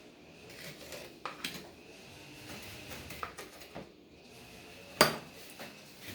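Kitchen utensils and dishes clinking: a scatter of light clicks and taps, with one sharp clink about five seconds in.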